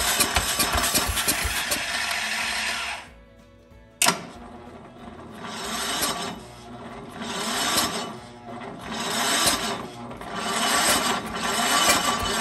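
Power King garden tractor's small engine running after a compression repair. It drops off sharply about three seconds in and there is a sharp click a second later. It then surges up and down about every second and a half before it picks back up to a steady run near the end.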